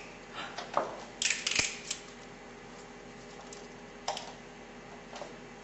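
Handcuffs being clicked shut on wrists held behind the back: a few sharp metal clicks, a short ratcheting rattle about a second in, then single clicks near the end.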